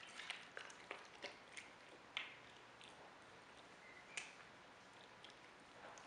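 Capybara biting and chewing watermelon: soft, wet crunches and clicks in irregular bursts, busiest in the first two seconds, with sharper crunches about two and four seconds in.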